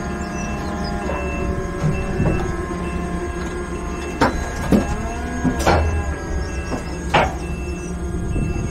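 MAN eTGX electric truck reversing slowly, its electric drive whining in steady tones that glide in pitch now and then, while a reversing beeper sounds about once a second. Three sharp clicks come about a second and a half apart in the second half.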